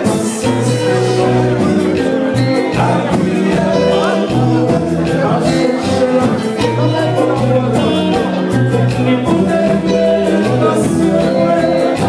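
Haitian kompa band playing live: a man singing into a microphone over keytar, bass and drums with a steady beat.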